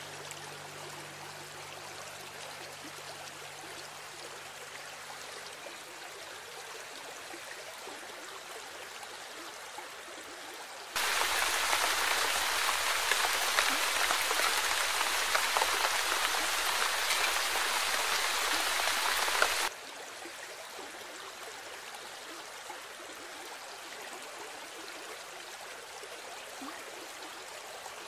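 Steady rush of water and rain. Partway through, a much louder stretch of rushing floodwater starts suddenly and cuts off after several seconds.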